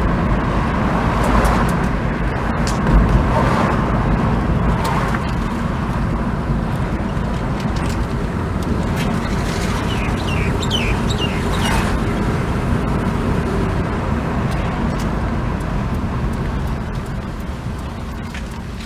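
2000 Mazda MPV's 2.5-litre V6 running with an uneven, rough rumble. The owner puts this down to an exhaust leak at the manifold and an engine misfire.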